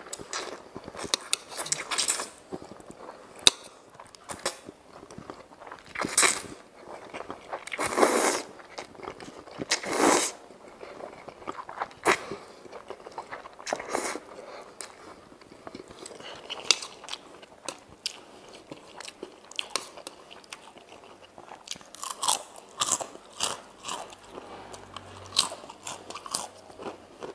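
Close-up eating sounds of chicken noodles: noodles being slurped in several short bursts, with wet chewing and crunchy bites in between.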